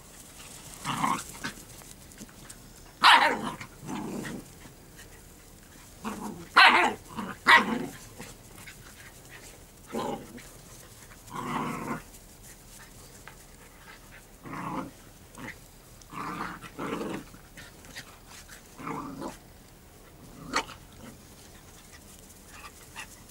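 Puppies barking and growling in rough play, in short separate bursts. The loudest barks come a few seconds in.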